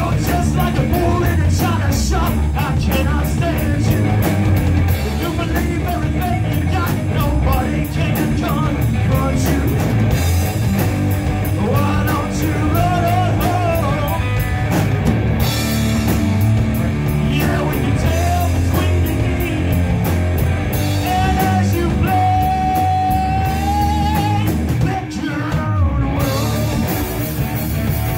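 Rock band playing live: distorted electric guitar, electric bass and drum kit. The band briefly drops back near the end before coming in again.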